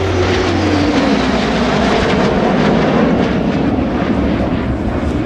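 Fighter jet passing overhead: its engine whine falls in pitch over the first second or so as it goes by, then gives way to a steady, loud jet noise.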